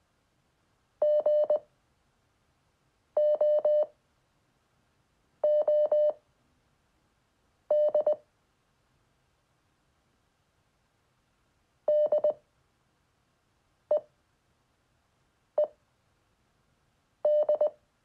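Morse code at 5 words per minute: beeps at one steady pitch, sent letter by letter with long pauses between letters, spelling G-O-O-D, then after a longer pause D-E-E-D (the two E's are single short blips).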